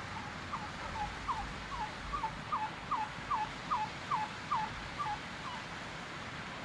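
A run of about a dozen wild turkey yelps, short notes each dropping in pitch, evenly spaced about two and a half a second, growing louder and then trailing off, over a steady background hiss.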